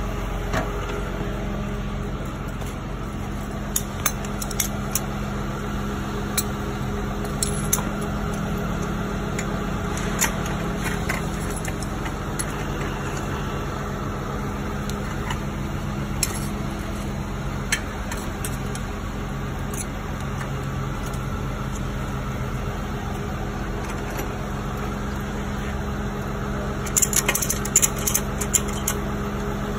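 Tow truck engine idling steadily, with scattered sharp metal clinks from wheel-strap hooks and a ratchet buckle. Near the end comes a quick run of clicks as the ratchet strap is tightened around the car's front wheel on the wheel-lift.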